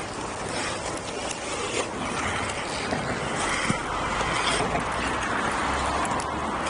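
Inline skate wheels rolling on rough asphalt: a steady grinding rolling noise that grows stronger in the middle, with a few light clicks from the skates.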